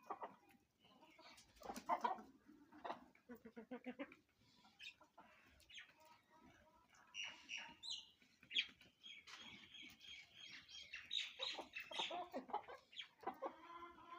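Desi hens clucking in short repeated calls, with a quick run of clucks a few seconds in and higher-pitched calls later on.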